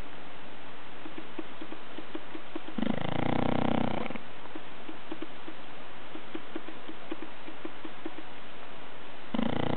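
Snoring during sleep: two loud snores, the first about three seconds in and the second starting near the end, each lasting just over a second, with faint quick flutters of breath between them.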